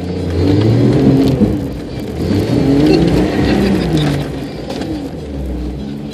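Jeep engine revving up and easing back twice while it drives an off-road course, heard from inside the cab.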